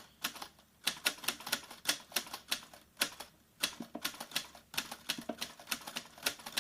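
Typewriter key clicks, typing in quick irregular runs with a few brief pauses.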